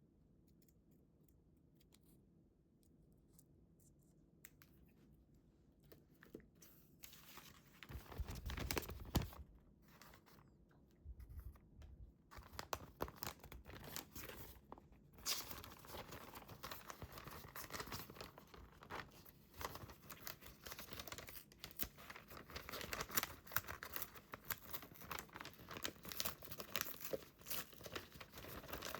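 Paper being handled, torn and crinkled by hand. It is quiet at first, with a brief bump of handling about eight seconds in, then a steady crackling rustle from about twelve seconds on.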